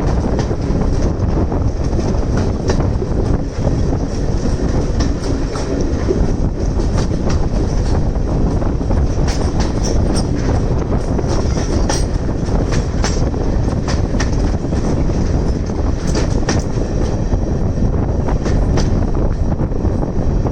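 Railway carriage running along the track: a steady rumble of wheels on rails with frequent irregular clicks over the rail joints and a thin high wheel squeal that comes and goes.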